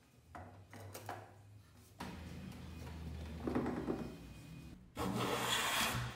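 Light handling knocks of clamps and boards, then about five seconds in a wooden hand plane is pushed along a board, shaving off wood in one stroke lasting about a second, the loudest sound here.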